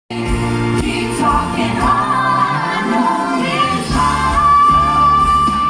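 Pop song with female vocals over instrumental backing; the singer holds one long high note near the end.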